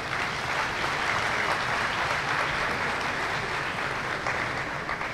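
An audience applauding, a steady clapping that dies down near the end.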